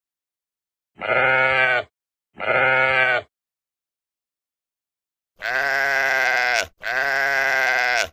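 Sheep bleating: two short bleats, then after a pause two longer, louder bleats.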